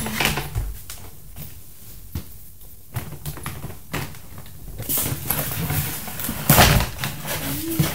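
Toy packaging being handled: rustling of the cardboard and plastic tray with scattered clicks, and scissors snipping the ties that hold a toy horse in its box. The rustling is loudest in two bursts in the second half.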